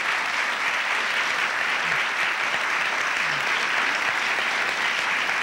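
Studio audience applauding steadily, with a voice faintly under it a couple of times.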